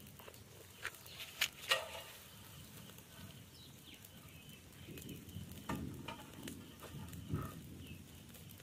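A small heap of dry stalks burning, with a few sharp cracks and pops about a second or two in. Later come rustling and scraping as the smouldering pile is poked with a long stick.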